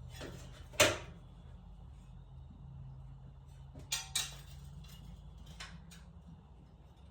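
Metal hand tools clinking and knocking during a spark plug change: one sharp knock about a second in, two more close together around four seconds, and lighter ticks between.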